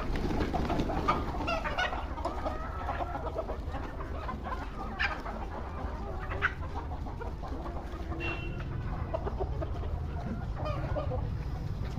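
Desi chickens clucking, with short calls scattered through, over a steady low rumble.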